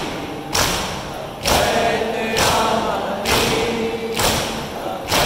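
Mourners doing matam, striking their chests with open hands in unison in a steady beat just under a second apart, six strikes in all. Voices chanting a noha together run between the strikes.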